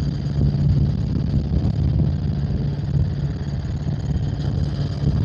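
Helicopter in flight: steady drone of the engine and rotor, with a faint high whine above it.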